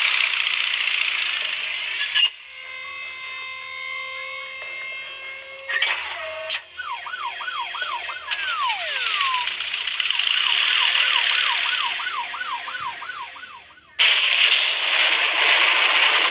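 Siren sounding in quick repeated rising sweeps, about three a second, over a steady rushing noise, broken once by a long falling wail; before it come a few seconds of steady held tones, and a loud rushing noise takes over near the end.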